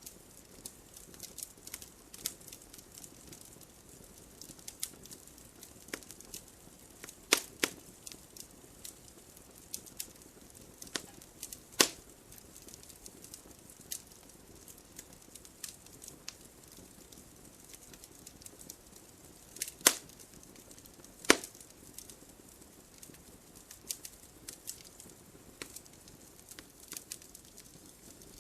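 Wood fire crackling: irregular small snaps and ticks over a faint hiss, with a few louder pops, one about 7 seconds in, one near the middle and two close together about two-thirds through.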